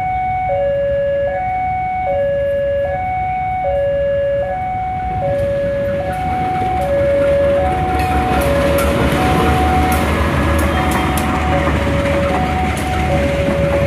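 Railway level-crossing warning alarm sounding two alternating tones, switching about every half second. A passenger train approaches and passes: from about eight seconds in, the train's low rumble and the clatter of its wheels over the rails build up under the alarm.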